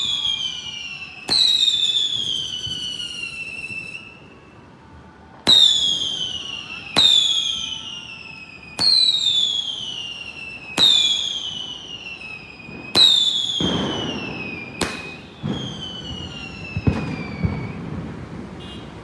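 Sixteen-shot fireworks cake firing its tubes one after another: about eight shots, each a sharp crack followed by a whistle that falls in pitch over a second or two. There is a pause of a few seconds after the first shot, and a low rumbling noise under the last few shots.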